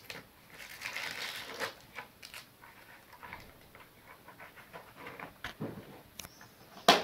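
Cardboard doll packaging being handled and pulled apart by hand: scattered scrapes and small ticks, with one sharp, loud snap near the end.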